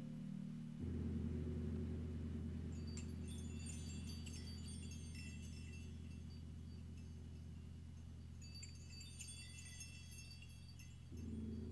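Ambient music: low held chords that change about a second in and again near the end, with sparse high tinkling, chime-like notes scattered over the middle.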